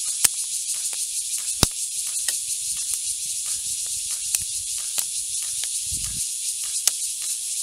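Insects in the grass buzzing in a steady, high-pitched chorus, dotted with short sharp clicks, two of them louder near the start. A brief low thump comes near the end.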